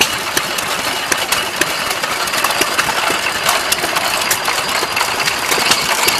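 Several antique hit-and-miss stationary gas engines running together, giving a continuous clatter of uneven clicks and pops from their firing and valve gear.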